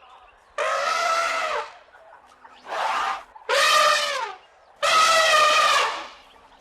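A series of four loud, pitched animal calls, each about a second long or less, separated by short gaps.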